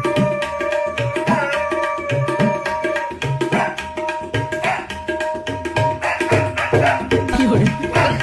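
Indian-style music: quick tabla drum strokes, with some low strokes bending in pitch, over a steady held note.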